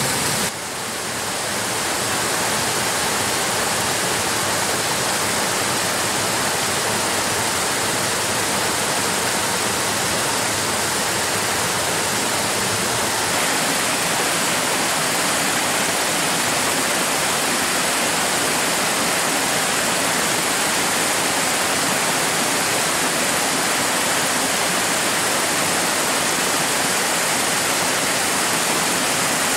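Mountain brook splashing over small rocky cascades near the Krems karst spring, a steady rush of falling and running water. The level dips briefly about half a second in and then comes back.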